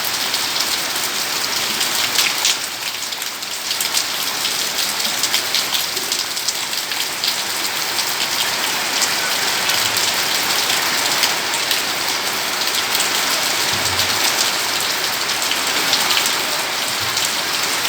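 Heavy rain falling steadily, a dense hiss with many close drop impacts.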